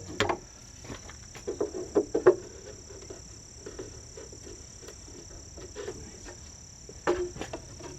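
Light knocks and clatter from wooden pieces and hand tools being handled on a workbench, coming in scattered bursts, with a steady thin high tone underneath.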